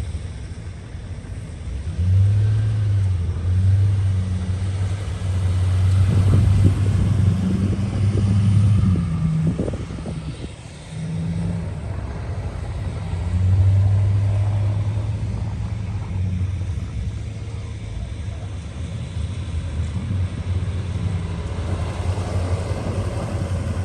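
Vehicle engine running with a low hum that swells louder several times, as if working under load.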